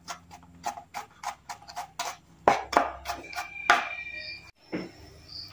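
Kitchen knife mincing garlic on a plastic cutting board: quick, evenly spaced taps of the blade, about three a second, stopping about four seconds in.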